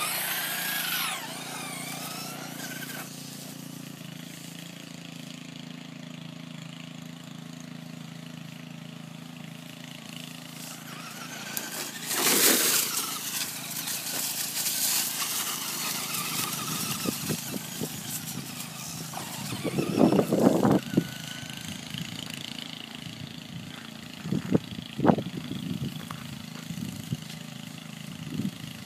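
A fast toy car's motor running. It opens with a whine falling in pitch and a steady hum that fades after a few seconds. There is a brief loud rush about twelve seconds in, and scattered knocks near the end.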